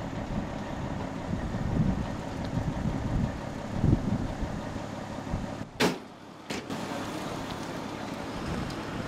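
Fire engine idling with a steady low rumble and outdoor background noise. A sharp click comes about six seconds in, and a lighter one just after; after them the low rumble is weaker.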